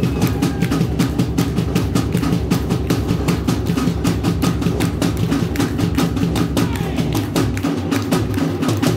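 Polynesian dance drumming: fast, even drum strokes, several a second, over a steady low beat.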